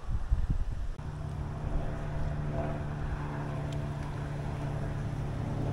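An engine drones steadily from about a second in, an even hum with several overtones. Before that come a few low rumbling thumps on the microphone.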